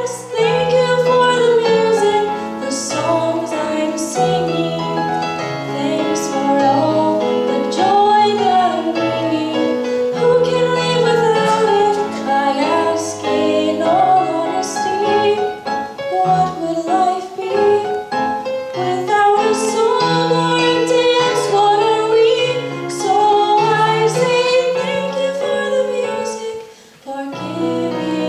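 A female voice singing a song with piano accompaniment, the sung line wavering over held chords, with a short break in the music near the end.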